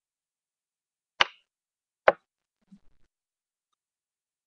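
Two sharp clicks a little under a second apart, followed by a few faint soft taps, with dead silence around them.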